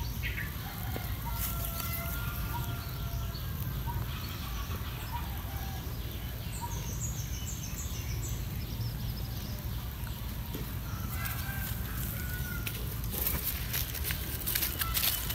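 Outdoor ambience with a steady low rumble and faint, scattered bird calls, including a quick run of high descending chirps around the middle. Dry leaf litter crackles and rustles near the end.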